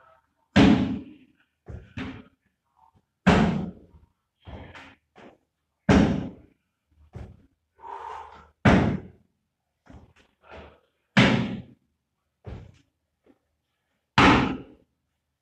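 Repeated box jumps: a loud thud from a landing about every two and a half seconds, six times, with softer thuds of the feet between them.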